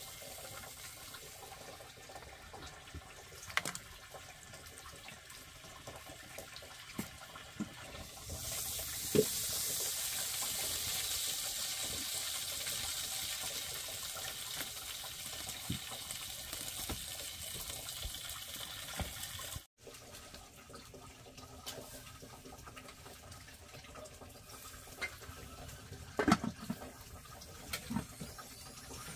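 Running water close by, with scattered small knocks and clicks. The water grows louder and hissier about a third of the way in, then breaks off abruptly a little past the middle and goes back to a quieter flow.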